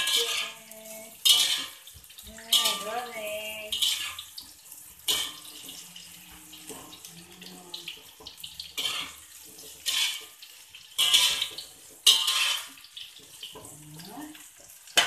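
Metal spatula scraping and knocking against a steel wok while fried tempe cubes are stirred, a stroke every second or so, over a steady sizzle of frying oil.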